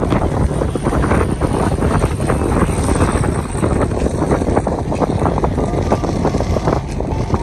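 Passenger river boat under way: its engine running steadily with water rushing and wind on the microphone.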